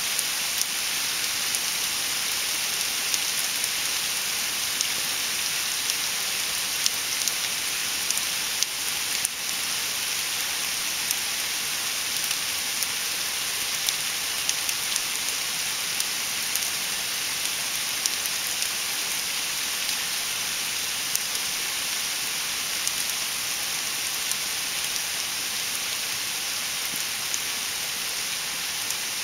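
Small hailstones falling steadily on moss and rock: a dense hissing patter with many small sharp ticks from individual stones.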